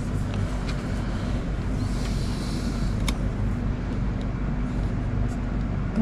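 A few light clicks of a camera gimbal being handled during balancing, over a steady low background hum.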